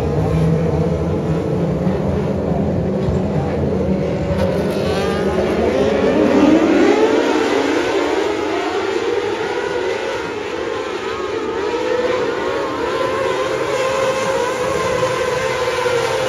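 A pack of winged outlaw sprint car engines running together, a low drone at first. About five seconds in the engines rise in pitch together as the field accelerates, then hold a higher, steady whine of many engines.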